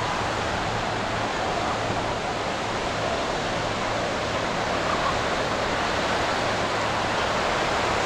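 Ocean surf washing on a sandy beach, a steady, even hiss of breaking waves with no distinct single crashes.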